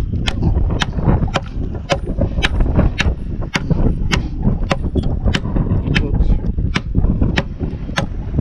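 A wrench used as a hammer, striking metal in a steady rhythm of about two blows a second, some fifteen sharp metallic hits in all, over a steady low rumble.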